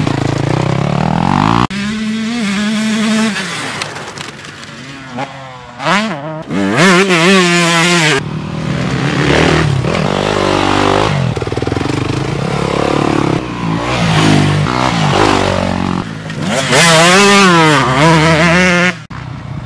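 Dirt bike engines revving on a motocross track, their pitch repeatedly rising and falling as the throttle opens and closes, with abrupt changes in sound a couple of times.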